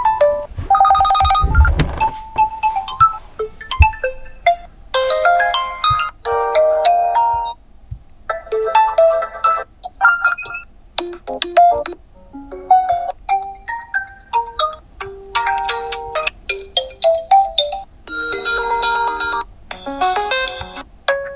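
Realme GT2 Pro smartphone speaker playing a run of its built-in alarm tones, short melodic phrases of chiming electronic notes. The melody changes every few seconds, with brief gaps between phrases.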